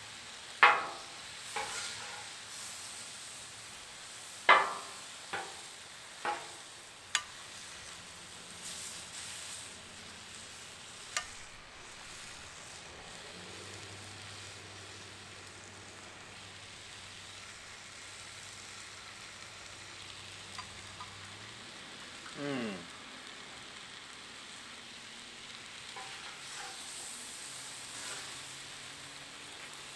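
Steak sizzling on a Blackstone flat-top griddle's steel plate, with metal spatulas clacking and scraping on the steel about seven times in the first dozen seconds, loudest near the start. A short sound falling in pitch comes about 22 seconds in.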